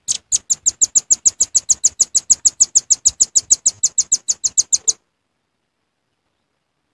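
Velvet-fronted nuthatch calling: a rapid, even run of sharp high chit notes, about six or seven a second, lasting about five seconds, then stopping abruptly.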